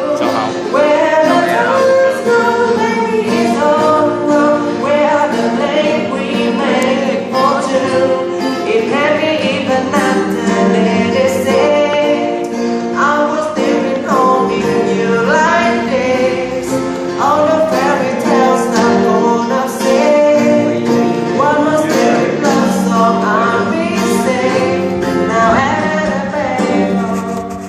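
A voice singing a pop song over its backing track, fading down near the end.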